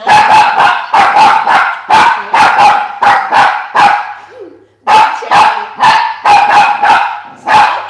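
Small toy poodle barking rapidly and insistently, about three sharp yaps a second, with a brief pause about four seconds in. It is jealous barking at its owner holding another dog.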